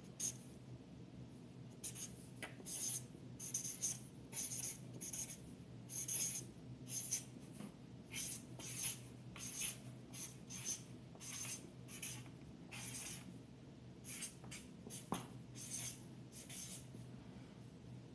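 Handwriting: a long run of short, irregular scratching strokes of a pen on a writing surface, over a faint steady low hum.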